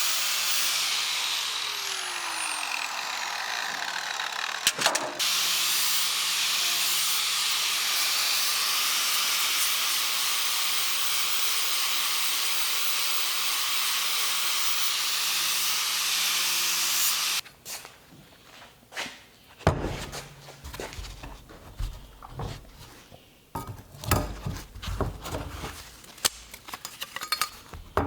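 A shop tool runs with a loud steady hiss over a low hum, falling slightly in pitch over its first few seconds, and cuts off suddenly about 17 seconds in. After that come irregular knocks and clatter from parts being handled.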